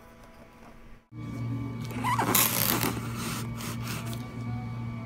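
Faint rustle of disposable vinyl gloves being handled, then a steady low hum with gloved hands rubbing and sliding over a cardboard shipping box. The scraping is loudest about two seconds in.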